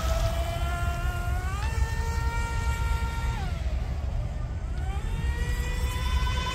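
A small electric RC mono hull boat's motor whines as it runs across the water. The pitch climbs with throttle about two seconds in, drops back after about three and a half seconds, and climbs again near five seconds, over a steady low rumble.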